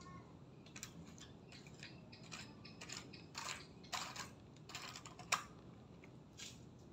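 Small pieces of cut-up CD being handled and sorted: a run of light plastic clicks and rustles, with one sharper click about five seconds in.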